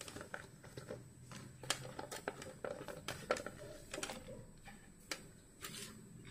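Faint, scattered taps and clicks of cut drumstick (moringa pod) pieces being dropped by hand into a pan of sliced tomatoes and water.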